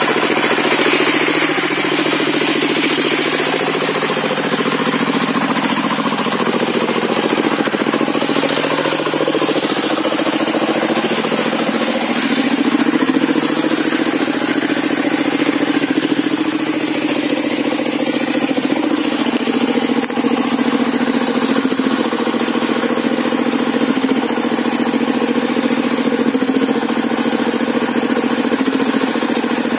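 Hand-crank-started engine powering a sawmill table saw, running continuously; its pitch sags and recovers several times, with the deepest dips around a quarter and two-fifths of the way through.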